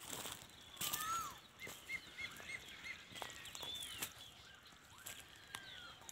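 Outdoor birdsong: several birds giving curving whistled calls, with a quick run of about five short notes around two seconds in. Brief bursts of crackling noise come near the start and again about a second in.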